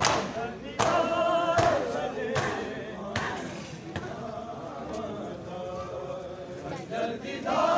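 A crowd of men beating their chests in unison for matam, sharp slaps about every 0.8 seconds under a chanted group lament. The beats fade out about three seconds in, and the chanting swells again near the end.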